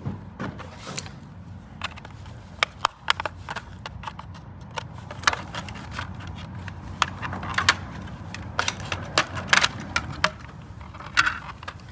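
Irregular sharp clicks, cracks and scrapes of hard plastic being pried and handled as a gate motor's cover is opened.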